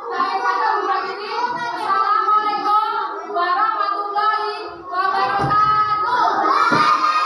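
A class of young children singing a song together, with held, sung notes.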